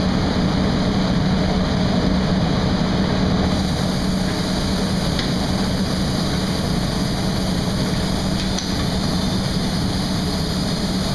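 Steady noise of a glass-blowing workshop floor, with furnaces and ventilation running: an even rushing sound over a constant low hum.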